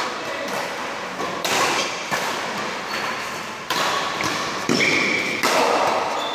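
Badminton rally: several sharp racket hits on the shuttlecock at irregular intervals, each followed by a short ringing echo, mixed with players' footsteps on the court.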